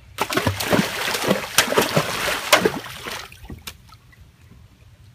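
Swimming-pool water splashing and sloshing for about three seconds, with sharp splashes among it, then dying down.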